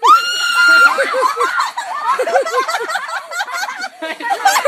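A high-pitched scream held for just under a second, then a long run of laughter in short rising-and-falling bursts.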